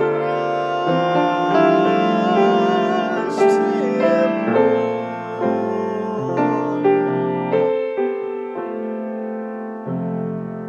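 Piano playing the slow closing chords of a hymn arrangement, the notes ringing and the music gradually dying away. In the first few seconds a man's voice holds a long sung note with vibrato over it.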